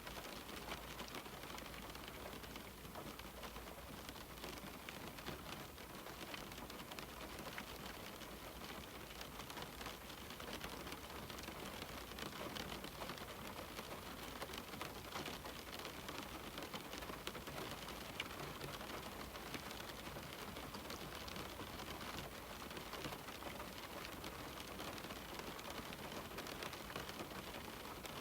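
Rain falling steadily on a window: a dense scatter of small drop ticks over an even hiss, with no lulls or surges.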